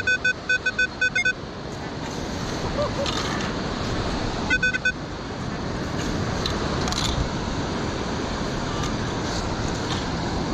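Metal detector sounding its target tone: a quick run of beeps, about four a second, through the first second or so, and a short burst again near the middle, which signals buried metal under the coil. A steady hiss of surf and wind runs underneath.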